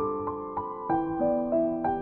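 Background keyboard music: a slow melody of piano-like held notes over chords.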